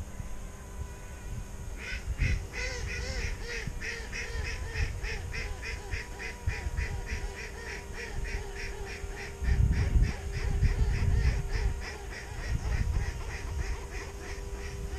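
Waterfowl calling in a long, rapid series of about four calls a second, starting about two seconds in, with gusts of wind buffeting the microphone partway through.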